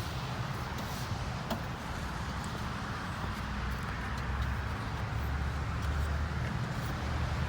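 Car engine running steadily, a low even hum.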